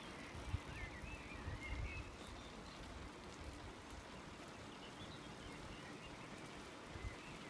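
Bicycle tyres rolling over a gravel road, a steady faint crunching hiss with low rumbling bumps from wind and jolts on the microphone. A few faint warbling bird chirps come in near the start and again about halfway.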